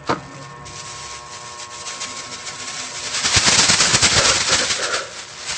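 Thin plastic bag crinkling and rustling as it is pulled off a head of green leaf lettuce, loudest for about two seconds past the middle. A single sharp click comes just after the start.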